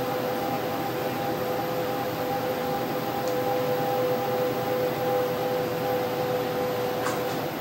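VISX excimer laser system running during PRK eye surgery: a steady two-note electronic tone held over a constant hiss. A short click comes about seven seconds in, and the tone stops just after it.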